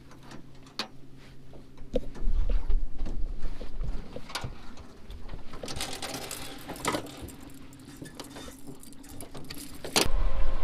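Rental fishing boat's electric motor humming steadily under many small clicks and knocks, with a low rumble coming and going. Near the end a loud knock, after which the rumble grows louder as the boat gets under way.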